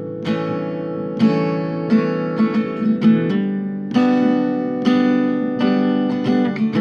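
Background music: acoustic guitar picked and strummed in a steady rhythm.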